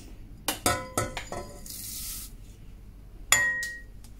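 Rolled oats poured from a white ceramic cup into a stainless steel pot of water. The cup clinks on the pot's rim several times, there is a short hiss as the oats slide out, and one sharper ringing clink comes near the end.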